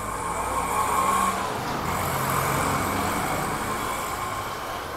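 A motor vehicle passing close by, its engine and road noise getting louder over the first second or two and then slowly fading.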